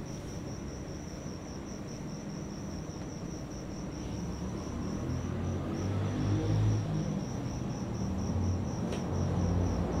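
A cricket chirping steadily in an even, fast pulse of about five beats a second. A low rumble grows louder about halfway through.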